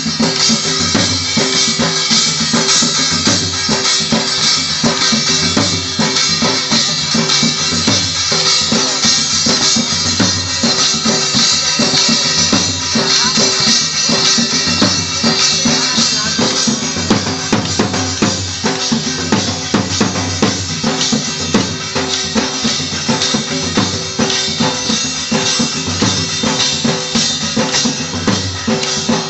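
Loud Marwari dance music with a driving drum beat and steady melodic tones.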